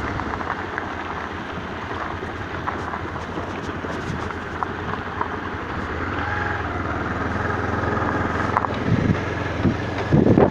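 Motorcycle engine running steadily. Wind buffets the microphone in gusts near the end.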